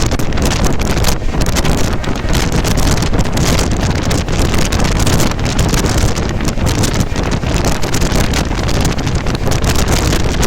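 Wind buffeting the microphone over the steady rumble of a moving vehicle, with a constant crackle running through it.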